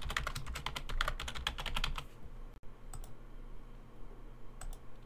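Typing on a computer keyboard: a quick burst of keystrokes for about two seconds, followed by a few single clicks.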